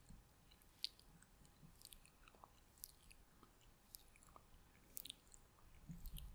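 Faint, close-miked ASMR mouth sounds: soft wet clicks of lips and tongue, irregular, one or two a second.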